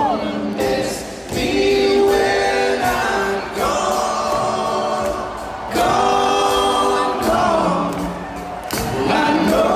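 Rock band playing live, with several voices singing long held notes in harmony in phrases of about two seconds, recorded from the audience.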